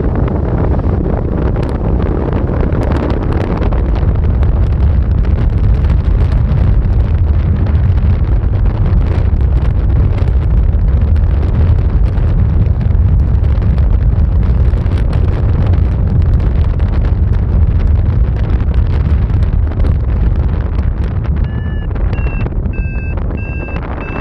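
Strong wind buffeting the microphone: a loud, steady low rumble with crackling gusts. Near the end comes a run of short electronic beeps, about two a second.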